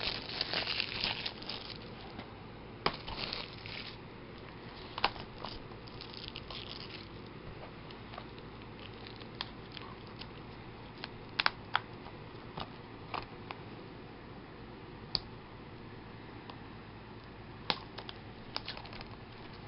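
Plastic shrink wrap being torn and peeled off Blu-ray cases, crinkling densely for the first few seconds, then scattered crackles and clicks as the wrap and cases are handled.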